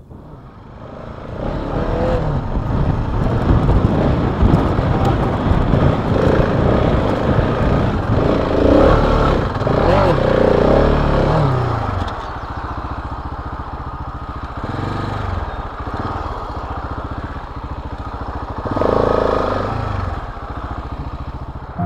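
Husqvarna 701 Enduro's single-cylinder engine pulling the motorcycle along a dirt track, its pitch rising and falling as the throttle opens and closes. It is loudest in the first half, settles lower after about twelve seconds, and swells once more near the end.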